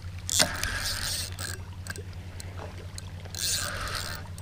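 Fishing rod and reel being handled as a carp takes the bait: a sharp knock about half a second in, then rattling and clicking of the reel.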